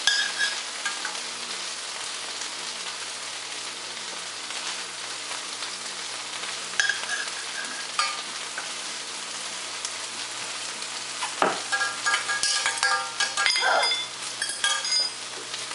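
Metal spoon stirring water in a stainless steel saucepan over a steady hiss, with a few scattered clinks and short rings of metal on metal. Near the end comes a quick run of clinks against the pot.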